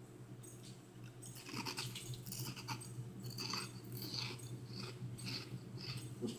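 Close-up chewing and crunching of lime-and-chile flavoured snacks: irregular crisp crunches that begin about a second and a half in. A steady low hum runs underneath.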